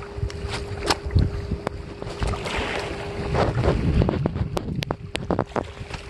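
Wind buffeting the microphone in low gusts, with scattered clicks and knocks of handling as the freshly caught rohu are picked up and held, most of them in the second half.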